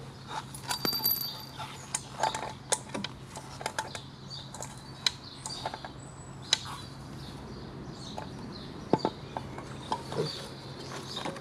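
Irregular metallic clinks and knocks of a scooter's variator drive parts being handled and wiggled by hand, checking them for looseness.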